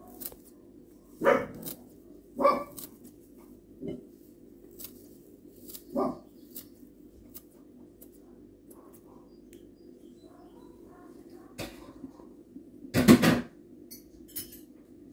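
Tefal kitchen scissors snipping dill sprigs over a bowl, making short sharp clicks over a steady low hum. Several louder short sounds break in, the loudest near the end.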